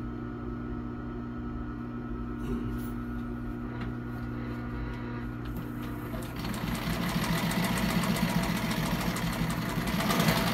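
Juki LU-563 industrial walking-foot sewing machine stitching through thick leather-like material, a fast, even run of needle strokes that starts about six seconds in and is the loudest sound. It stops abruptly near the end. A steady hum runs underneath, with a single knock a little before the stitching starts.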